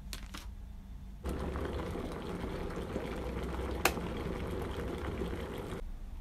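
A couple of light clicks from handling a paper drip-coffee bag. Then a Midea electric kettle runs with a steady bubbling rumble as it heats toward the boil, with one sharp click partway through, before the sound cuts off just before the end.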